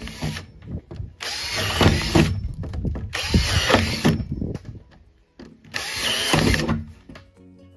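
A DeWalt 20V MAX cordless drill boring holes through the bottom of a plastic mineral tub, in three bursts of about a second each with short pauses between.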